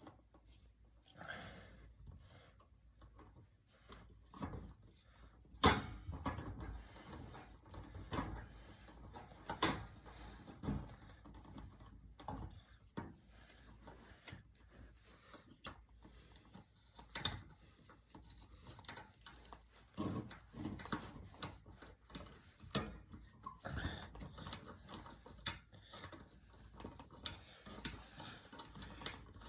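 Scattered clicks, knocks and rustles of hands handling parts and tools, with one sharper knock about six seconds in.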